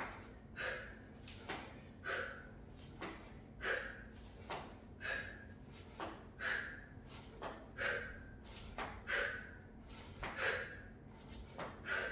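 A woman breathing hard and rhythmically through repeated squats: a sharp, audible breath out about every second and a half with a softer breath between, the panting of sustained exertion.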